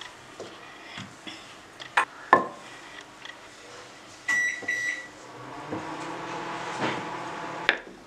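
A convection microwave preheating to 180 degrees beeps three times in quick succession a little after four seconds in. Before the beeps there are two sharp knocks about two seconds in, and after them a steady hum that ends with a click near the end.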